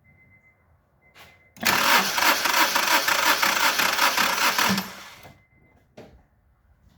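2001 Honda CR-V's starter cranking the engine for about three and a half seconds with a fast, even rhythm, and the engine does not catch: a no-start from a broken or stripped timing belt, with the distributor rotor not turning during cranking.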